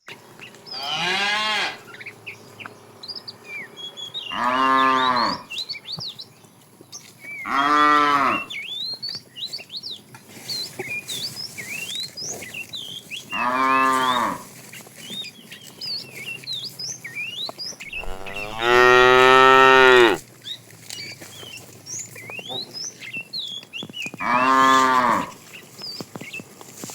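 A cow mooing six times, each call a drawn-out moo of one to two seconds; the fifth, a little past the middle, is the longest and loudest. Short high chirps sound in the gaps between the calls.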